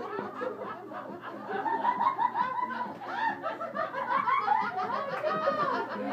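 A group of people laughing together, several voices overlapping.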